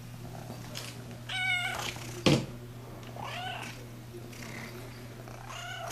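Domestic cat meowing three times, a longer call followed by two shorter ones, over a steady low hum. A sharp knock, the loudest sound, comes just after the first meow.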